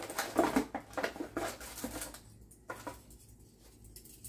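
Handling noise from unpacking camera parts: irregular rustling of packaging and light clicks and knocks of plastic parts, busiest in the first two seconds, then a couple of single clicks.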